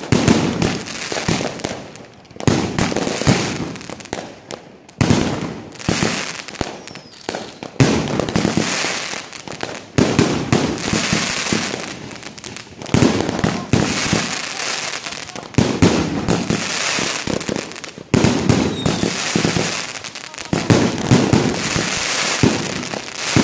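An 88-shot 50 mm (2-inch) mortar firework cake firing: shells launch and burst in quick succession, a steady stream of loud bangs with a crackling hiss of stars between them.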